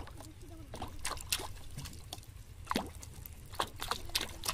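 Water splashing, dripping and plopping around a plastic bottle fishing float as it bobs and tips in the water, its neck dipping under the surface. The small splashes come irregularly, several a second at times.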